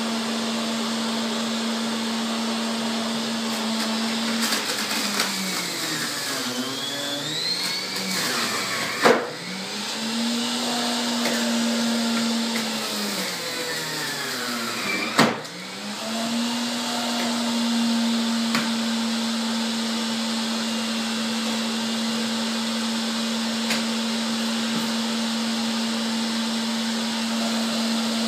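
Centrifugal juicer's electric motor running with a steady hum and whine. Its pitch wavers and twice sinks sharply as produce is pressed down the chute and the motor slows under the load, each time with a sharp knock at the low point, before it spins back up.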